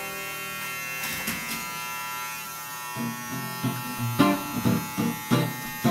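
Electric hair clipper buzzing steadily as it cuts short hair at the nape. Plucked guitar music comes in about halfway through and is the loudest sound by the end.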